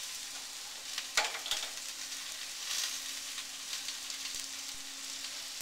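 Chopped onions, peppers and garlic sizzling steadily in a cast-iron pot as they sweat with spices, with a couple of light clicks a little over a second in.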